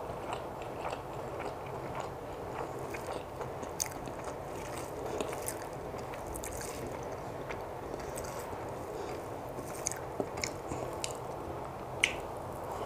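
Fingers mixing and squishing rice with fried greens on a plate, with scattered small clicks of chewing and mouth sounds over a steady low hiss. A sharp smack about twelve seconds in, as a handful of food goes into the mouth.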